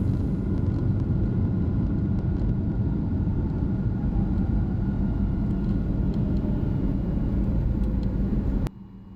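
Boeing 737 MAX 8 cabin noise during the landing rollout: a steady low rumble from the engines and the wheels on the runway. It cuts off suddenly near the end to a much quieter steady hum.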